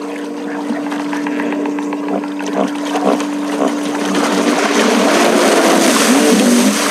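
Hippopotamuses churning and splashing in shallow water. The splashing grows louder toward the end as one hippo rears up and throws spray, with several rising-and-falling animal calls near the end.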